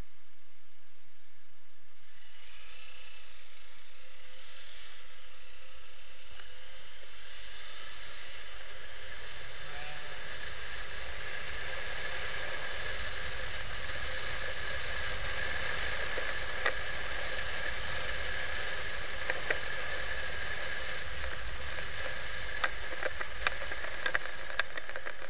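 Motorcycle riding along a city street, heard from a camera mounted on the bike: a steady hiss of wind and road noise that builds about two seconds in, with scattered light clicks and knocks in the second half.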